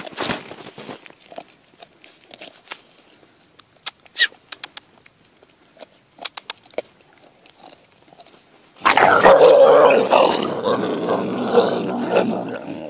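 Central Asian Shepherd puppy gnawing raw meat on a bone, with faint scattered crunches and clicks. About nine seconds in, loud growling breaks out suddenly as a second puppy goes for it and the two start fighting over the food.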